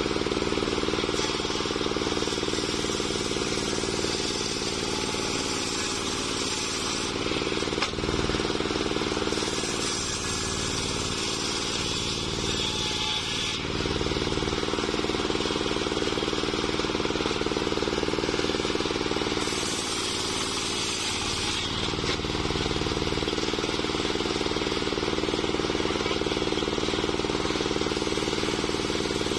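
Engine-driven homemade circular sawmill running steadily, its large blade ripping lengthwise through a waru (sea hibiscus) log. The cutting hiss over the engine swells and eases several times as the log is pushed through.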